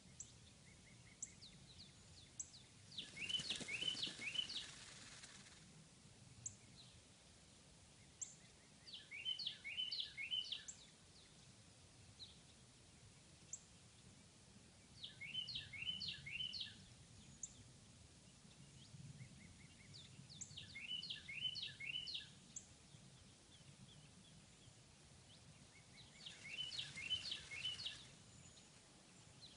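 Faint songbird singing: a short phrase of quick downward-sliding notes, repeated about every five to six seconds, with single thin high chirps in between.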